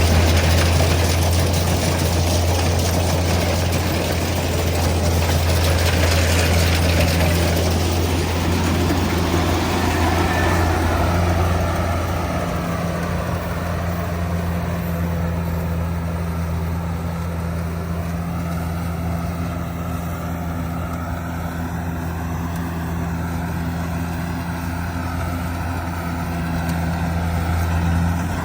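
Kubota DC70G Plus combine harvester's diesel engine running steadily with a constant low drone. About eleven seconds in, a broad hiss of machinery noise fades, leaving a faint wavering whine above the drone.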